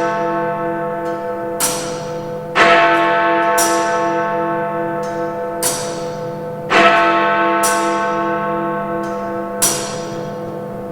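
Big Ben, the great hour bell, striking slowly: two heavy strokes about four seconds apart, each leaving a long humming ring that pulses as it fades. Lighter sharp strokes fall between them.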